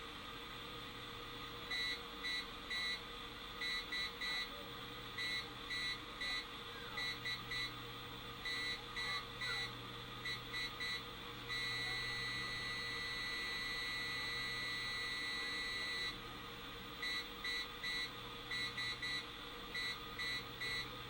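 Morse code heard as a beeping tone through a small AM radio's static: short and long pulses, with one long steady tone of about four seconds in the middle. The tone comes from negative ion generators being keyed on and off, which the radio tuned between stations picks up.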